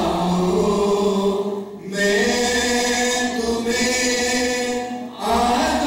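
A man singing a slow chant into a microphone, holding long notes, with short breaks for breath about two seconds and five seconds in.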